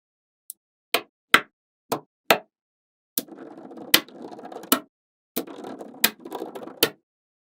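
Small magnetic balls snapping together: a few sharp separate clicks, then two stretches of rapid rattling clicks, each about a second and a half long.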